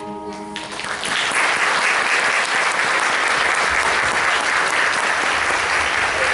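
The music's held final chord stops within the first second, and audience applause takes over, building quickly and carrying on steadily.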